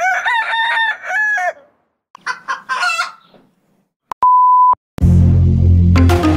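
A rooster crowing, then a second, shorter call, followed by a single steady beep about four seconds in; music with a steady bass line starts about a second later.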